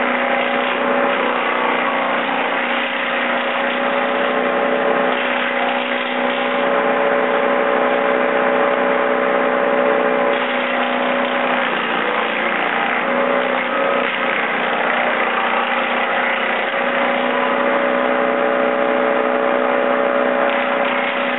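Wallenstein BXM32 PTO-driven wood chipper running steadily off a Kubota L3200 diesel tractor while cedar branches are fed in and chipped. The drone sags briefly in pitch a little past halfway as it takes the load.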